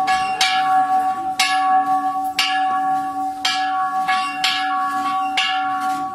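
Lost-wax-cast bronze church bell, a working reconstruction of the Carolingian bell of Canino, being rung: its clapper strikes about once a second, and each stroke rings on into the next.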